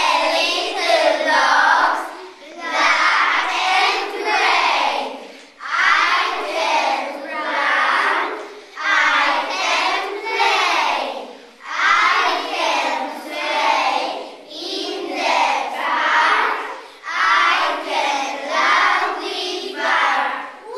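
A group of children singing a song together, in phrases of a few seconds with brief breaks between them.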